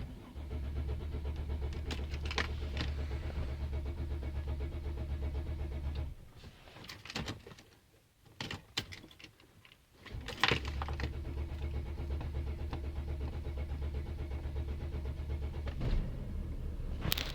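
Mercedes Sprinter's starter motor cranking the engine in two long attempts of about six and seven seconds, with a short pause and a few clicks between them; the engine is slow to fire, a hard start. A sharp click comes near the end.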